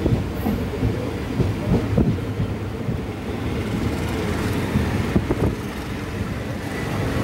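Moving Indian Railways express passenger coach, heard from on board: a steady low rumble of wheels on the rails, with irregular clacks and knocks.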